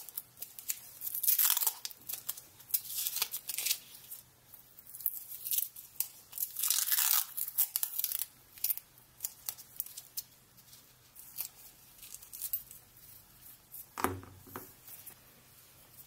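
Foil masking tape being peeled and torn off the steel screw and handle of a small vise, in crinkling, tearing rustles that come in several bursts, loudest in the first half, with a single light knock near the end.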